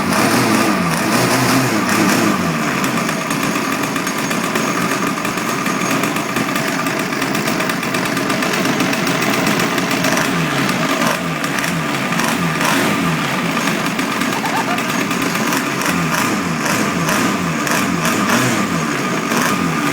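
35cc two-stroke gas engine of an RC boat running continuously, its pitch wavering slightly. The engine is running again after two years idle, with its gummed-up carburettor cleaned and oiled.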